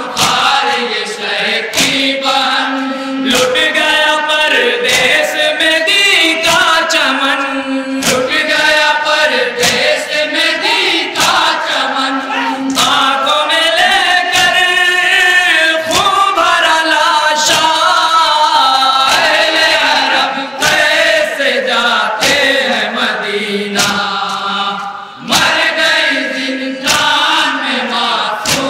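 A group of men chanting a noha in chorus. Their voices are crossed by sharp rhythmic slaps of matam, hands striking the chest, a little under once a second.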